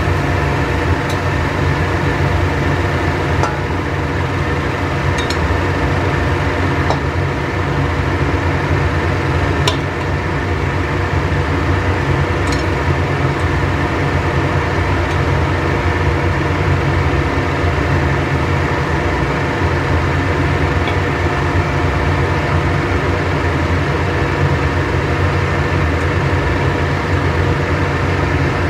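Steady mechanical hum of a kitchen appliance's motor running, with a few light clicks of wooden chopsticks against the stainless pan and ceramic plate.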